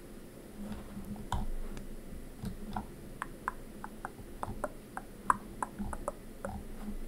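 Sparse, irregular clicks of a computer mouse and keyboard, coming more often from about two and a half seconds in, over a faint steady low hum.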